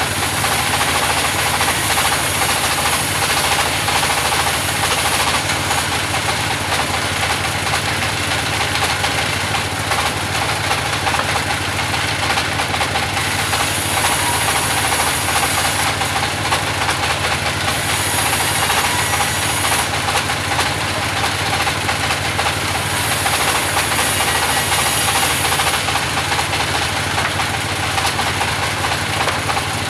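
Engine-driven band sawmill running steadily, with a high hissing that comes and goes every few seconds as the blade works through the wood.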